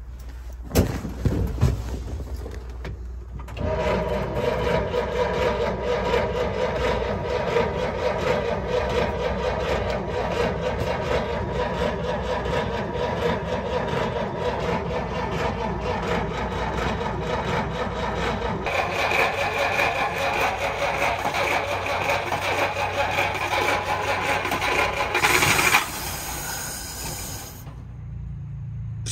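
1937 Plymouth's 201 cubic inch flathead six being cranked over by its starter for a little over twenty seconds, a steady quick chugging that does not catch. A few clicks come first, and a louder rushing hiss comes for a couple of seconds before the cranking stops. The engine is choked and does not fire.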